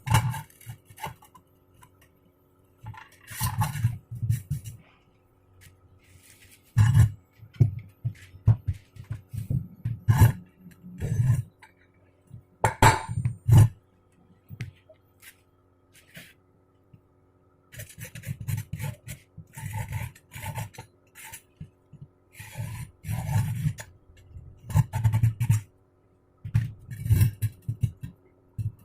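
Intermittent metal scraping and clinking as steel parts are handled and worked, in short bursts a second or two long with quiet gaps between them.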